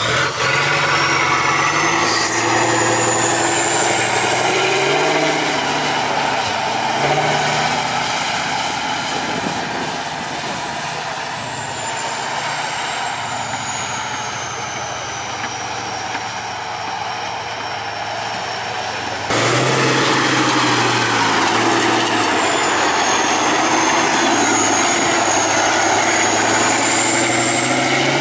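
Tatra 815 6x6 trial truck's diesel engine working at changing revs as it crawls over rough ground, with a high thin whine rising and falling above it. About 19 seconds in, the sound jumps suddenly louder.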